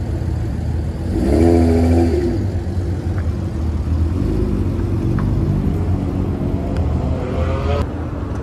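Engine of a classic Nissan Skyline 'Kenmeri' (C110) hardtop revving as the car pulls away, rising in pitch about a second in, again around four seconds in, and once more near the end.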